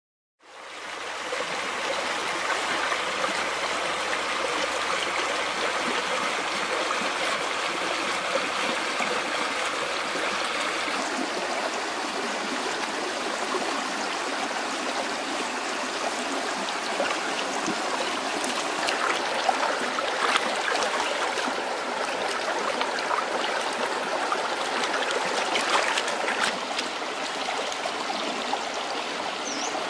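A small stream babbling and trickling steadily, fading in over the first half second, with a few brief clicks in the second half.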